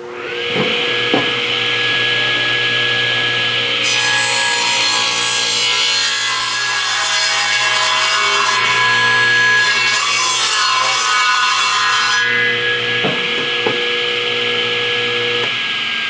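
Table saw coming up to speed and running with a steady whine. From about four seconds in to about twelve, its blade cuts into a half-round wild cherry log, a slow pass hollowing out the inside, before the saw runs free again.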